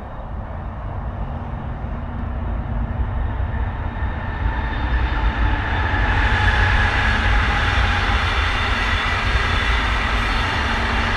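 Brightline passenger train approaching and passing, its wheel-on-rail noise growing louder from about five seconds in over a steady low rumble.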